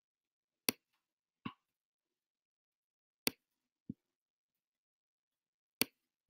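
Computer mouse button clicks: three sharp clicks, each followed under a second later by a softer, duller click, like a press and release while dragging, with silence between.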